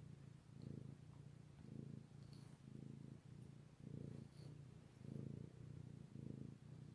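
Domestic cat purring close up: a quiet low rumble that swells and fades about twice a second with its breathing.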